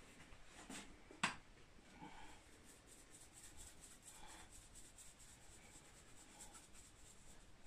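Hand pepper mill grinding over a pot: a faint, fast run of scratchy crunching ticks from about two seconds in until near the end, after a single click about a second in.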